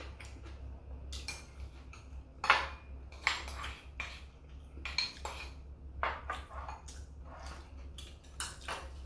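Chopsticks clinking and scraping against ceramic bowls and side dishes during a meal: a string of short, irregular clinks, the sharpest about two and a half seconds in.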